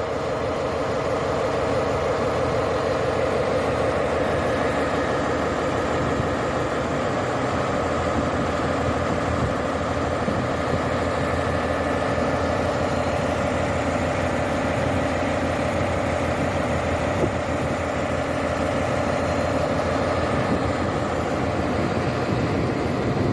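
PKP Intercity SU160 diesel locomotive running at close range, its diesel engine a steady, even drone with many tones.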